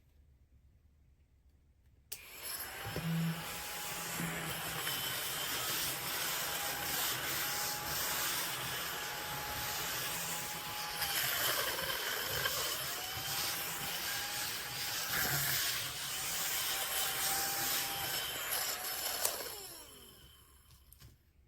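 A mini cordless desktop vacuum cleaner switches on about two seconds in and runs steadily with a small-motor whine. Its pitch dips briefly twice, and near the end it is switched off and winds down with a falling whine.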